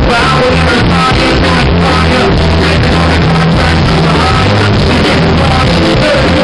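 Live band playing rock-style music with electric guitar, keyboard and drums, loud and rough on the recording.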